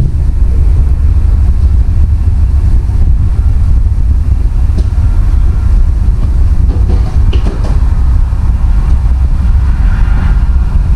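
A steady, loud low mechanical rumble like a running engine, with a few light knocks over it.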